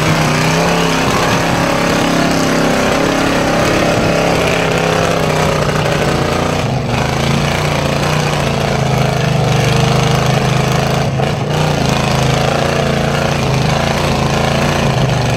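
Off-road Chevy S10 truck's engine running loud and steady at low revs while the truck crawls up a rock ledge.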